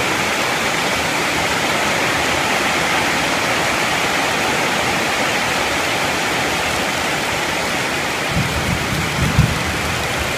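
Heavy tropical downpour: a steady rush of rain, with roof runoff pouring into a large glazed water jar. A few low thumps near the end.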